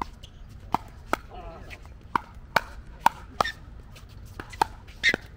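Sharp pops of pickleball paddles hitting a plastic pickleball, about a dozen irregularly spaced strikes, some louder and closer than others.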